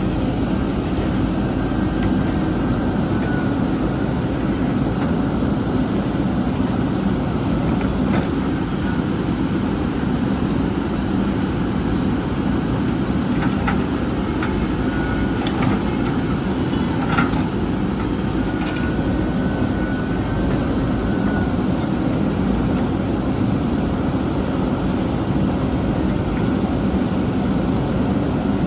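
JCB 3DX backhoe loader's diesel engine running steadily, with a few faint knocks midway.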